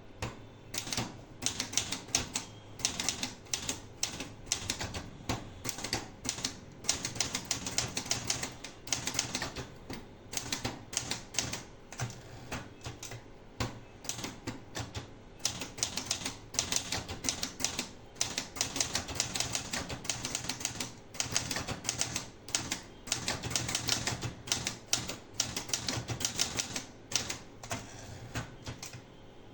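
Olivetti Lettera 32 manual portable typewriter being typed on: a quick, uneven run of sharp key and typebar strikes, several a second, with short pauses between bursts.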